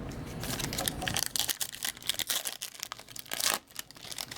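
Hockey trading cards and their packs being handled: a run of quick crinkles, rustles and small clicks.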